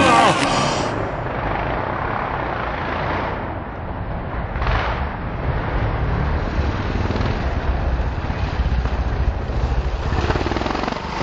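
Motocross bike engines running out on the track, the sound rising and falling, with a brief louder pass about five seconds in.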